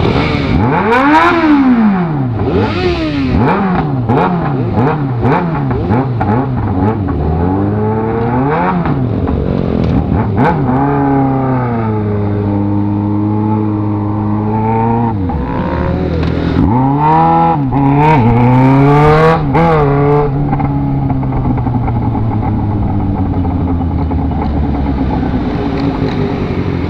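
Motorcycle engine revved in repeated quick blips, each rising and falling in pitch. It runs more steadily through the middle, is revved again a few times about two-thirds of the way in, and settles into a steady tone near the end.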